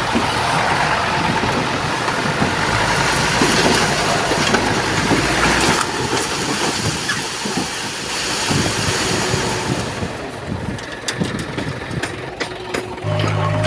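Heavy diesel construction machinery at work: an engine running under a dense noisy clatter. About ten seconds in the sound thins to scattered sharp clicks, and near the end a steady low engine hum sets in.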